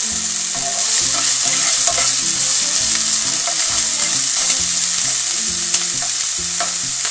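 Chopped onion sizzling in hot oil in a pan while a spatula stirs it, with a steady frying hiss and a couple of sharp clicks of the spatula against the pan about halfway through.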